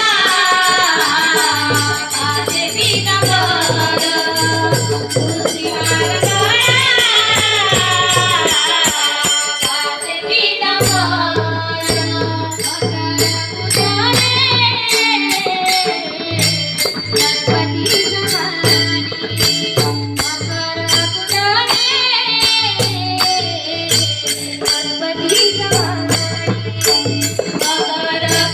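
Marathi devotional bhajan: a voice singing a long, wavering melodic line over a fast steady clinking of small hand cymbals and pulsing low drum beats.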